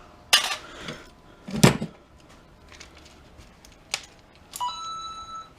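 Small metal scrap parts clanking as they are handled and dropped onto a pile, about four separate knocks; near the end one piece rings briefly with a clear metallic tone.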